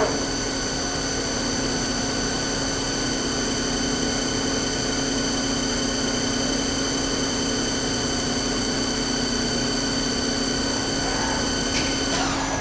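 YCM Supermax CNC vertical machining center running a program: a steady high-pitched spindle whine made of several fixed tones over a low hum. Near the end a falling sweep comes in and the highest tones drop away.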